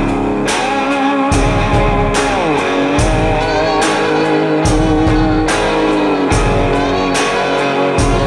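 Background rock music led by guitar, with bent notes over a steady drum beat.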